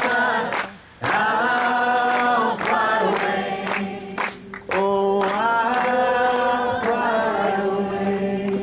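A group of people singing a hymn together, mostly long held notes with two brief breath pauses, the last line held out near the end.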